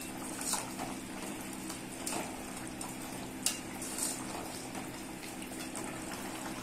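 A perforated steel ladle stirring a thick chicken curry in a stainless steel pot, mixing in tomato cubes, with a few short scrapes and clinks of metal on the pot, about four in all. A steady low hum runs underneath.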